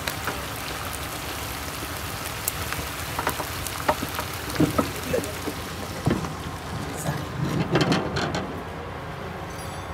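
Steady hissing from the cooking pot and fire, with scattered knocks and clatter. The clatter grows near the end as the heavy cast metal pot is gripped and shifted on the grill.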